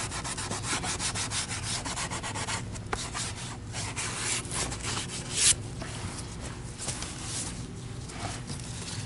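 Scrub pad rubbing back and forth on the plastic housing of a vacuum cleaner power head in quick, repeated strokes, scrubbing off paint marks. One stroke about halfway through is louder than the rest.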